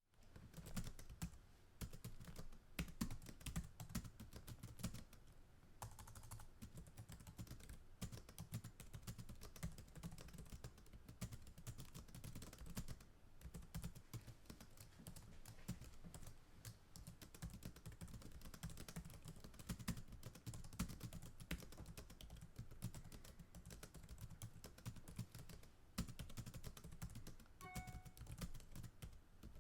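Computer keyboard typed on fast, recorded close up: a continuous run of rapid, uneven key clicks.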